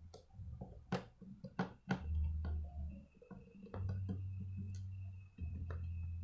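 Irregular sharp clicks and taps of small laptop parts being handled during disassembly, over a low handling rumble. A faint steady high whine comes in about halfway.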